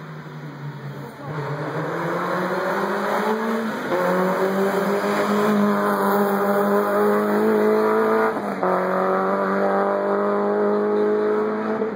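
Race car on a hill-climb run, engine revving hard as it accelerates up past and away. The engine note climbs in pitch and breaks twice as it changes up a gear, about four seconds in and again near nine seconds.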